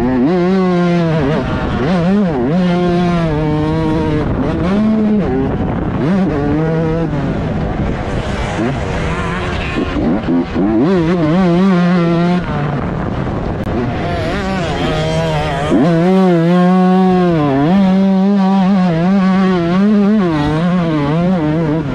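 A 125cc two-stroke motocross bike engine revving hard, its pitch climbing and dropping again and again as the throttle is worked and gears change.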